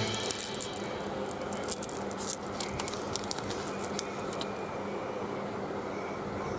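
Plastic Skittles sachet crinkling softly as it is handled, with a run of light crackles and clicks that thin out after about four seconds.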